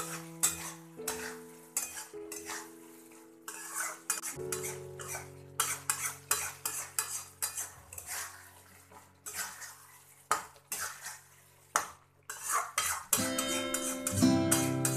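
Metal spatula scraping and clinking irregularly against a metal kadai as a thick curry of bitter gourd and potato is stirred. Soft background music with held chords plays underneath.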